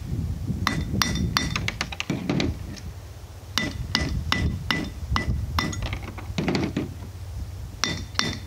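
Steel socket molds and metal clinking and tapping together in three quick clusters, each tap ringing briefly at the same bright pitch, over a low steady hum.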